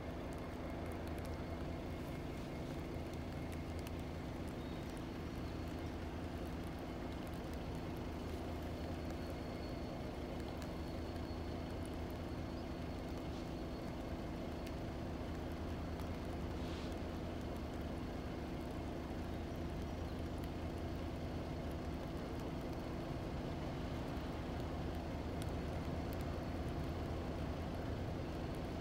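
Distant Norfolk Southern diesel locomotive running as it approaches slowly, a steady low engine drone that grows a little louder toward the end.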